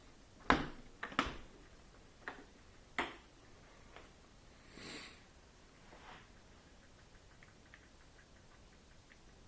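Sharp clicks and knocks from a Bosch dishwasher being handled, about half a dozen in the first four seconds, then a soft rustle and faint quick ticking near the end.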